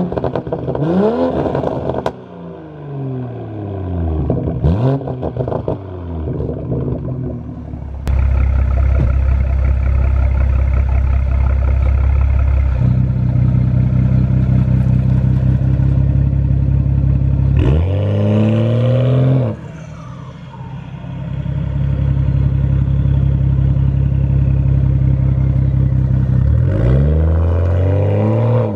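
BMW M340i's turbocharged 3.0-litre inline-six through a straight-piped cat-back exhaust, with the muffler and valve removed behind a catted downpipe. It is very loud: a few quick revs rising and falling, then steady running with one more blip of the throttle partway through, and near the end the car accelerates away.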